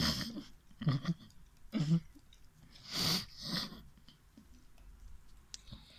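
Australian Kelpie licking condensed milk from inside a tin can held to its muzzle: several short, wet slurps with quiet gaps between them.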